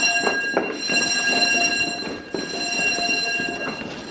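Electric fire alarm bells ringing continuously in a steady metallic tone, with scattered knocks beneath. The alarm was set off by dust in a smoke detector: a false alarm.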